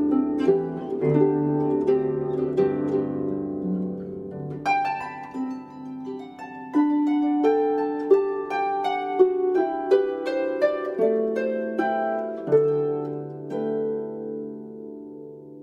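Solo harp playing: plucked notes ring on and overlap each other. A brighter, higher passage enters about five seconds in, and the playing grows quieter toward the end.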